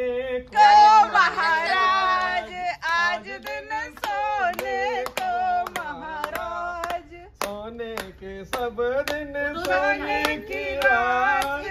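A group of voices singing together, with hand clapping in a steady rhythm.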